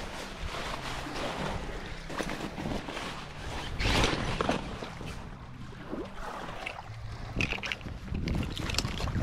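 Wind buffeting the microphone over surf on a beach, with a few short knocks and clicks, the loudest about four seconds in and several more near the end.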